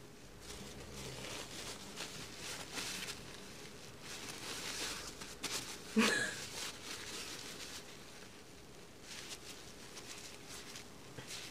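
Faint rustling and handling noise as a paper tissue is pressed and rubbed against skin while a pimple is squeezed. One brief, louder sharp sound about halfway through.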